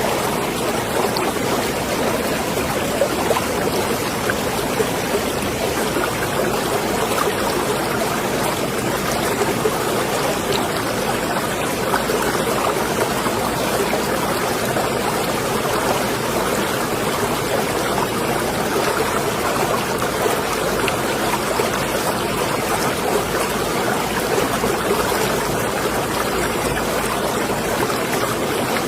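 Marina water lapping and trickling: a steady, even wash of small splashes and gurgles with no let-up.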